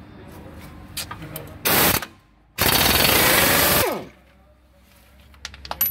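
Impact wrench hammering a bolt loose behind a front brake disc: a short burst about two seconds in, then a longer burst of just over a second, and the motor winds down with a falling whine as the trigger is let go. A few light metal clicks follow near the end.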